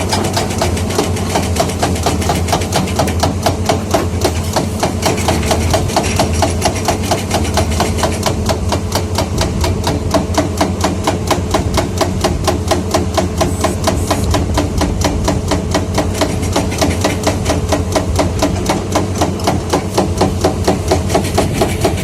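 Hydraulic breaker hammer on a Komatsu 210 excavator pounding steadily, several rapid blows a second, over the excavator's running diesel engine.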